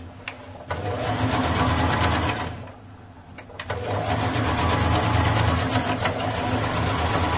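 Brother electric sewing machine stitching a seam at speed, its rapid, even needle strokes over a steady motor hum. It stops briefly at the start and again for about a second around three seconds in, then runs on.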